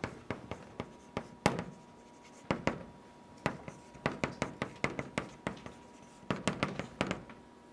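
Chalk writing on a blackboard: an irregular run of sharp taps and short scratches as strokes are written, with a short pause about two seconds in.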